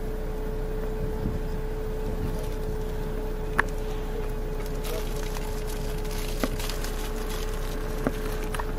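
Steady low rumble of an idling vehicle engine with a constant hum, broken by three faint clicks.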